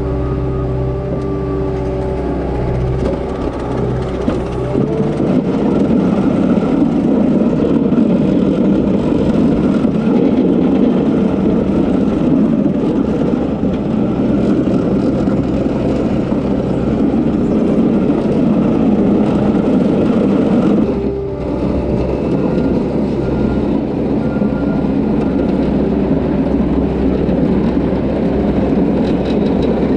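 Loader's diesel engine running, revving up about five seconds in and working hard under load. It eases off briefly about two-thirds of the way through, then comes back up.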